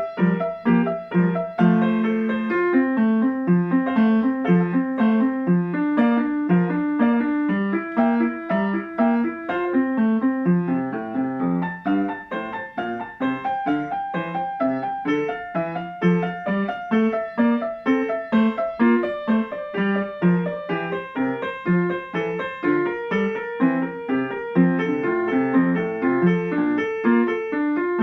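Grand piano played solo: a continuous stream of notes, several a second, with the strongest notes in the lower middle of the keyboard.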